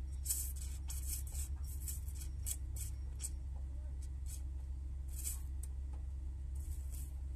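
Hands scrubbing a small cylindrical hydraulic pump part in a tray of sudsy cleaning fluid: quick, irregular wet rubbing and scraping strokes over a steady low hum.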